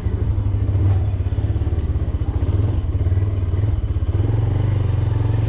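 Engine of a moving road vehicle running steadily under way, a dense rapid low pulsing.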